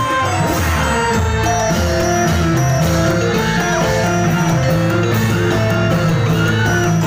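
Loud music with a melody of held notes stepping up and down over a steady bass.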